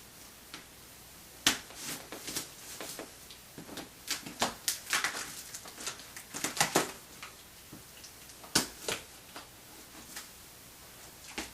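Cardboard shipping box being opened by hand: irregular scrapes, rustles and clicks of cardboard and packing, with a few sharp knocks and a busy stretch in the middle.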